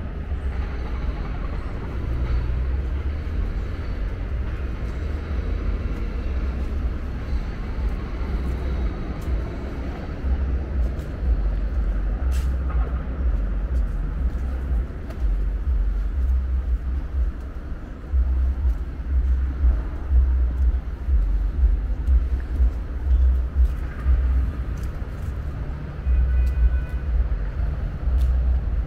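Outdoor ambience dominated by a low, uneven rumble that swells stronger past the middle, with a few faint clicks.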